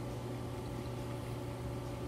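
Steady low hum with a light background hiss, unchanging throughout.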